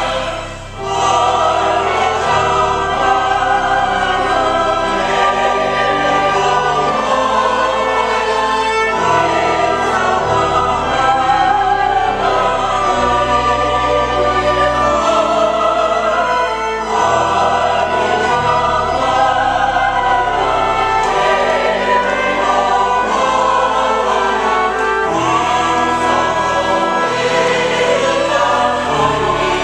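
Church choir singing a slow hymn with pipe organ accompaniment, long low notes held beneath the voices, with a brief break between phrases about a second in.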